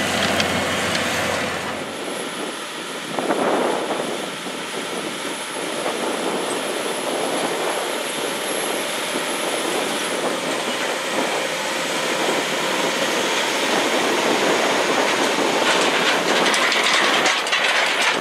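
Case IH Steiger 400 Rowtrac tractor running under load while pulling a toolbar applicator through the soil, a steady mechanical din. Near the end it passes close, with a lot of clattering and rattling from the implement.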